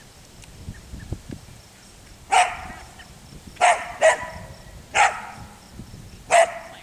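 Belgian Sheepdog barking while herding sheep: five sharp barks about a second apart, two in quick succession, starting about two seconds in.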